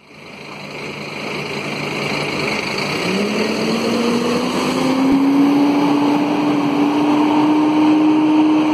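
Scania K230UB city bus with its DC9 diesel pulling away from a stop. The engine runs with a whining howl from its radiator fan. About three seconds in, the howl begins to rise slowly and steadily in pitch as the bus speeds up. The sound fades in at the start.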